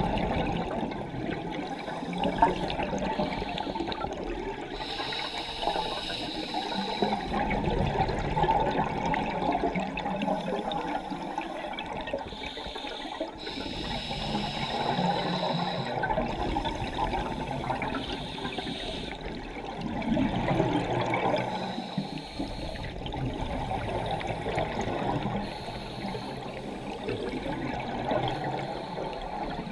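Scuba divers' open-circuit breathing underwater: regulator breaths and the gurgling rush of exhaled bubbles, heard through a camera housing, swelling and fading every few seconds with each breath.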